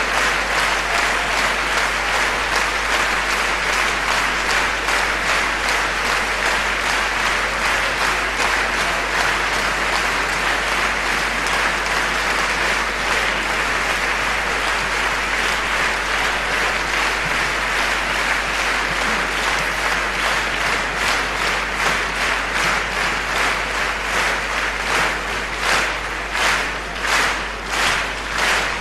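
A large concert audience applauding loudly and steadily. Near the end the clapping falls into a rhythmic unison beat, a little under two claps a second.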